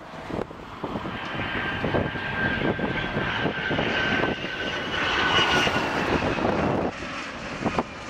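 Dassault Falcon 900EX's three turbofan engines whining as the jet flies low on approach with its gear down, a steady high whine over a rumble that fades a little after about six seconds. Gusty wind buffets the microphone.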